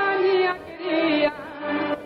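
A man singing a slow melody into a microphone over a live band, holding long notes that waver in pitch and breaking briefly between phrases.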